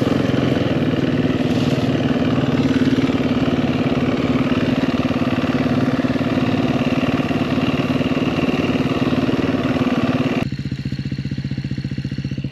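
KTM dirt bike's single-cylinder engine running steadily. About ten seconds in the sound drops suddenly to a quieter, lower engine note.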